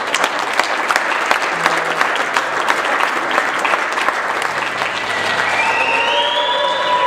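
Audience applauding with dense clapping. About five seconds in, the clapping thins and a few steady tones join it.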